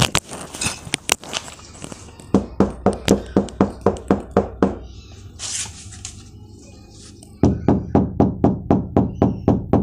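Knocking by hand on the outer skin of Honda City car doors: two runs of quick knocks at about four a second, the later run louder and deeper. It is a sound-deadening test, setting a door with one layer of deadening mat, which sounds solid, against an untreated door, which sounds hollow.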